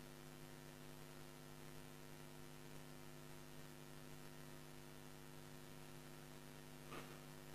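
Near silence: a steady electrical mains hum with faint hiss from the studio's audio chain. A faint short sound comes near the end.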